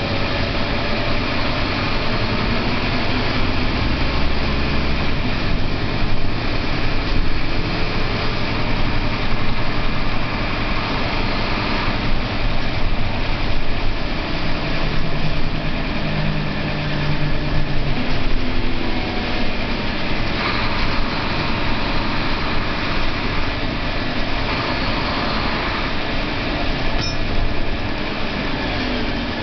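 Scania single-deck bus under way, heard from inside the passenger saloon: steady diesel engine and road noise, the engine note shifting now and then.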